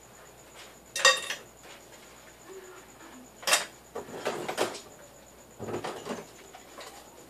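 Dishes and cutlery clinking and knocking at a kitchen sink as they are washed and set down. The loudest is a single ringing clink about a second in, followed by a run of clatters from about three and a half seconds to near the end.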